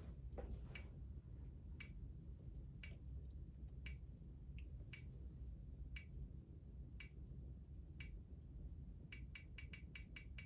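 Faint sharp clicks about once a second over a low steady hum, then a quick run of five or six clicks near the end.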